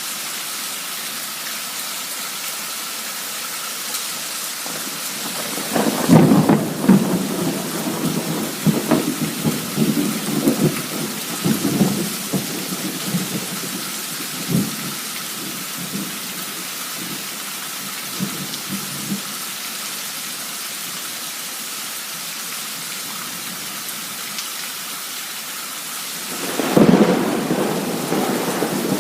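Torrential rain hissing steadily during a cloudburst. About six seconds in, a thunderclap breaks and rolls on in irregular peaks for several seconds, and a second loud clap comes near the end.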